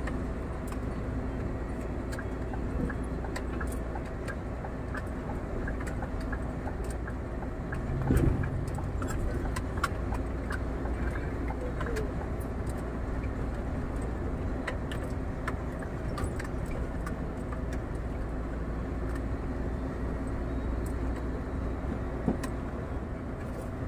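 Scania R440 truck's six-cylinder diesel engine droning steadily, heard inside the cab, with many small clicks and rattles of cab fittings throughout and one louder thump about eight seconds in.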